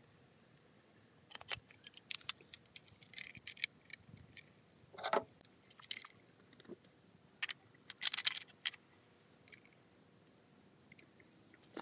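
Small metal parts clicking and clinking as FAL rifle handguard halves and a bolt with washers are handled and fitted together: a run of light clicks and scrapes, with louder clinks about five seconds in and around eight seconds.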